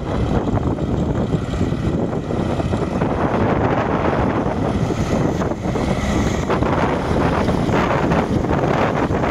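Pair of SNCF BB 69400 diesel-electric locomotives in multiple passing close by at low speed, their engines running, followed by a train of further locomotives and an infrastructure rake rolling over the rails. Heavy wind noise on the microphone runs through it.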